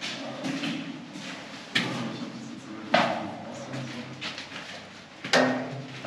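Four sharp knocks spaced one to two and a half seconds apart, the third and fourth the loudest.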